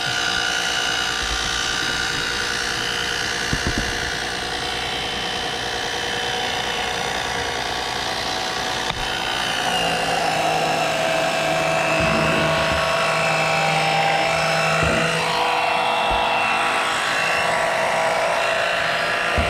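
Small electric oil extractor pump running steadily with a whine, sucking engine oil up through its tube from the dipstick hole. Its tone changes about halfway through.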